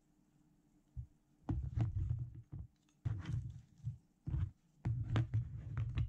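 Hands moving small plastic paint pots and a wooden easel around in a cardboard kit box: a run of dull bumps and light clacks, starting about a second in.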